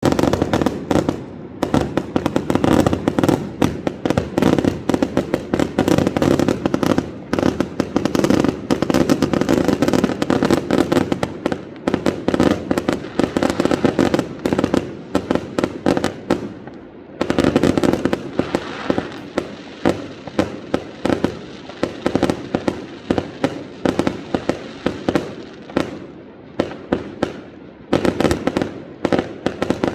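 Fireworks going off in a dense, rapid barrage of bangs and crackles, easing briefly a little past halfway before picking up again.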